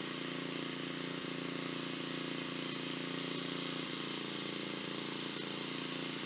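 1984 Snapper rear-engine riding mower's 8 hp Briggs & Stratton single-cylinder engine running steadily at an even, unchanging speed.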